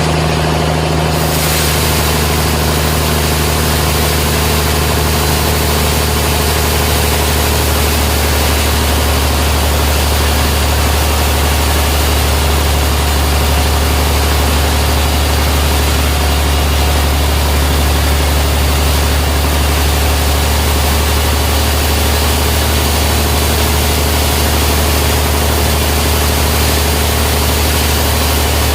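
Sawmill machinery running steadily: a constant low hum with an even hiss over it and no change in load.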